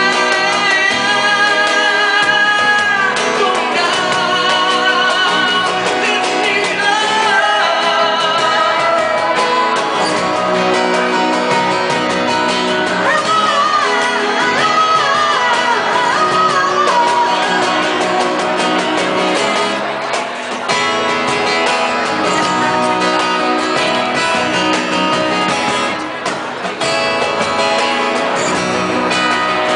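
Live band music: a male vocalist singing into a microphone over acoustic guitar and band accompaniment, holding a long wavering note near the start.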